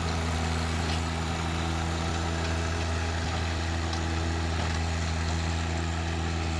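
John Deere 1025R compact tractor's three-cylinder diesel running steadily under load, driving a King Kutter rotary tiller through the garden soil.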